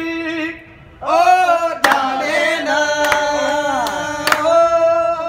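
A man singing a Punjabi song unaccompanied, holding long, wavering ornamented notes. He breaks off briefly about half a second in. A few sharp claps cut through the later held note.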